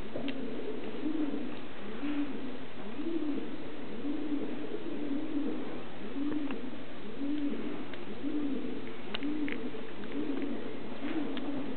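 Many pigeons roosting in the rafters, cooing continuously: low, overlapping coos, about one or two a second, with no pause.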